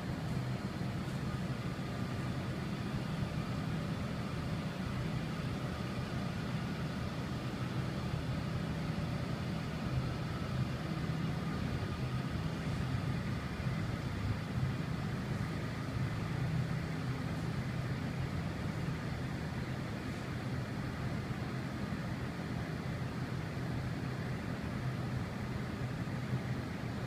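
Steady low mechanical hum of a large store's air-handling and refrigeration machinery, with faint steady higher tones over it and no change throughout.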